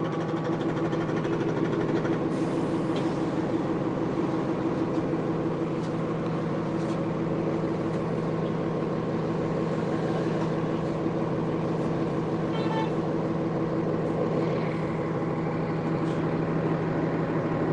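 Nova Bus LFS transit bus's Cummins ISL inline-six diesel engine running steadily at an unchanging pitch. A brief higher tone is heard about two-thirds of the way through.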